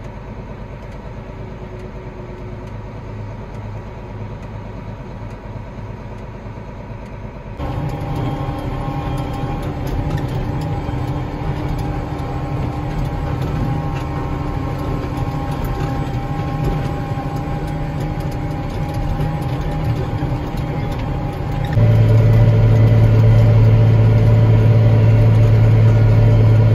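Case IH Magnum tractor engine heard from inside the cab, a steady hum. The sound steps up abruptly twice, about a third of the way in and again near the end, where a strong low drone is loudest.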